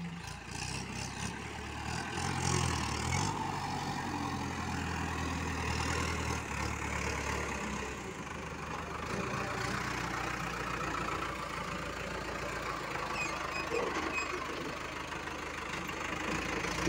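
Farm tractor's diesel engine running while its front-end loader digs into a heap. It is louder for the first few seconds, then runs steadier.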